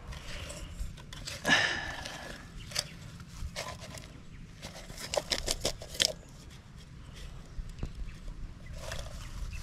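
Light clicks, taps and rustles of an open tin can of soil and its attached metal lid being handled by fingers, with a louder scrape about one and a half seconds in and a quick run of clicks around the middle.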